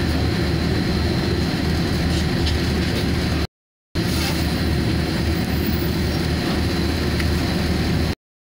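Steady low engine and road rumble heard from inside a moving vehicle, with a faint high steady whine over it. The sound cuts out completely twice for a fraction of a second, about three and a half seconds in and at the very end.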